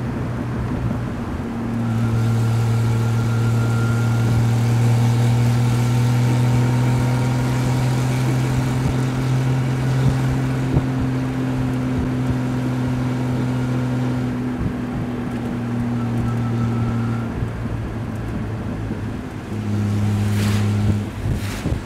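1967 Triumph Vitesse 2-litre straight-six engine in an open roadster running at a steady cruise, its drone held for most of the stretch, dropping away for a couple of seconds near the end and then picking up again. Under it runs a steady hiss of wind and tyres on the wet road.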